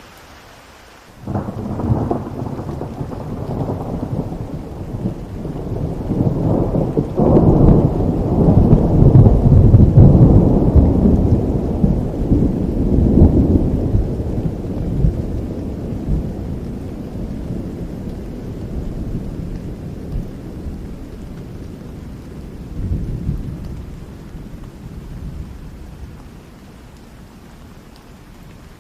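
Thunder over steady rain: a sudden clap about a second in, then long rolling rumbles that are loudest in the middle of the stretch, with one more swell near the end before the thunder dies away back to the rain.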